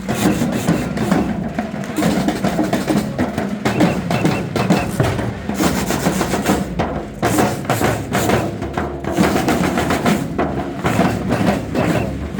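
Drum band playing, with snare and bass drums beating fast over sustained band tones.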